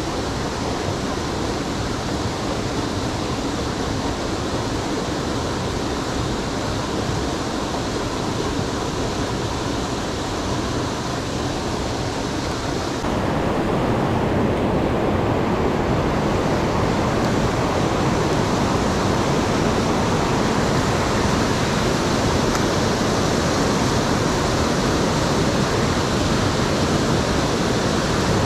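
Rushing creek water, a steady noise that becomes abruptly louder about thirteen seconds in.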